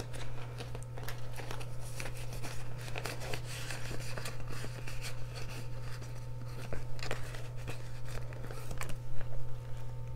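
Paper bills and a clear plastic binder pocket rustling and crinkling as cash is handled and slid into the pocket, with a steady low hum underneath.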